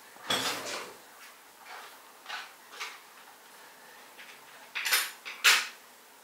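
Small wooden toy blocks clacking against each other as they are set one by one onto a tall stacked tower: a string of light, sharp knocks, with the loudest ones coming close together near the end.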